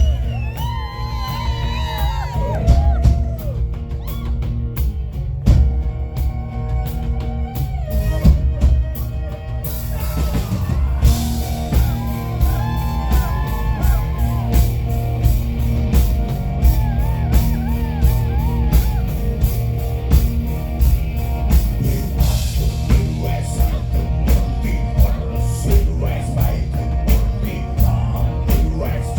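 Mongolian folk-metal song playing: a heavy, steady drum-kit beat and low guitars under a melodic lead, which stands out in the first few seconds and again from about ten to fifteen seconds in.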